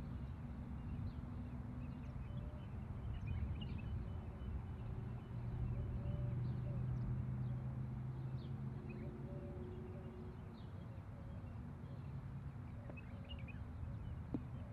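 Steady low drone of distant engine-driven course maintenance machinery, swelling slightly midway, with scattered bird chirps over it. Near the end, a single short strike: a sand-wedge bunker shot.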